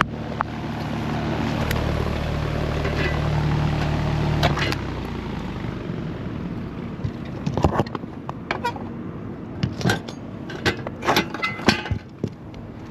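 Outdoor AC condenser unit running with a steady low hum that cuts off about five seconds in as its power is switched off. Several sharp metal clicks and knocks follow as the electrical disconnect box is handled.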